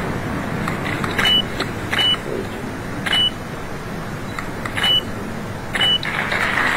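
Steady background noise of a crowded hall, broken by five sharp clicks, each with a short high beep, about a second apart; a brighter hiss swells near the end.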